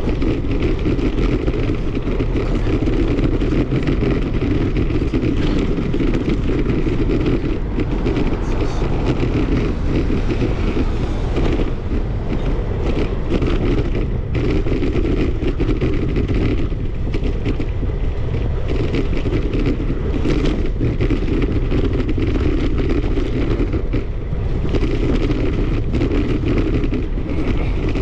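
Steady rushing wind and rolling noise of a moving bicycle, picked up by a camera riding on the bike, with no gaps or changes.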